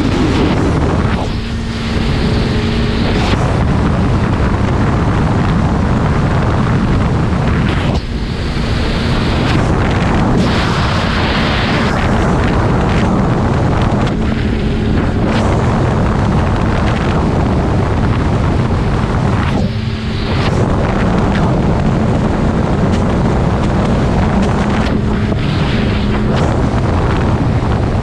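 Heavy wind buffeting the microphone from a snowmobile running at speed over snow, with the sled's steady engine drone showing faintly under the wind at times. The wind eases briefly a few times.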